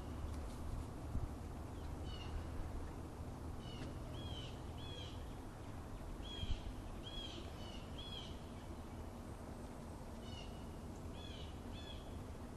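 A bird calling about a dozen short, downward-sliding chirps, singly or in quick twos and threes, over a low steady rumble.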